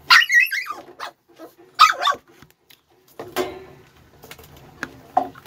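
A dog barking: two loud barks in the first two seconds, then softer ones.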